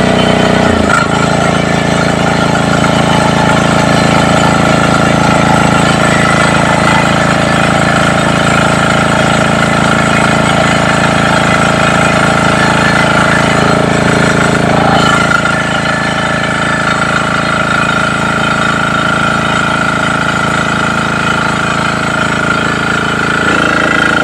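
Small diesel engine of a new water pump running steadily, with a shift in its note about a second in and again around fifteen seconds in. The pump is still being primed with poured water and is not yet delivering water.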